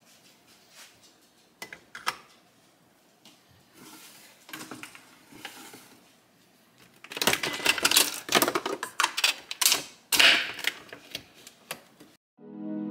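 Clicks and clattering of hands handling a Nespresso capsule coffee machine and a glass: a few scattered clicks at first, then a busier, louder run of clicks and knocks in the second half.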